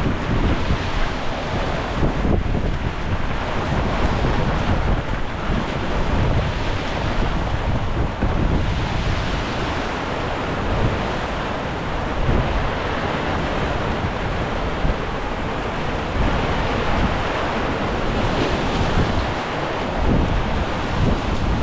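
Wind buffeting the microphone over the rush of sea waves aboard a sailboat under way in squally weather.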